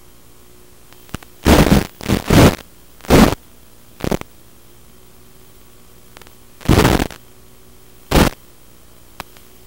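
Steady hiss from an analog FPV video link's audio channel, broken by about six short, loud bursts of static as the radio signal breaks up.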